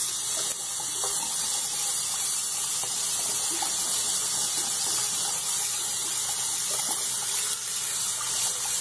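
Bathroom sink faucet running steadily, its stream splashing into the basin and onto a wet microfiber cloth.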